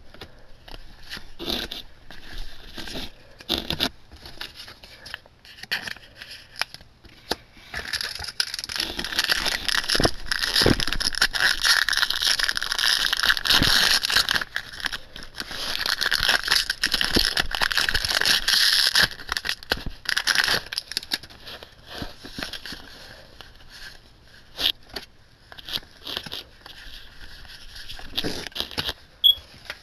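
Foil Yu-Gi-Oh! Savage Strike booster pack wrappers crinkling and being torn open, in two long stretches in the middle, with short rustles and clicks of trading cards being handled and slid against each other before and after.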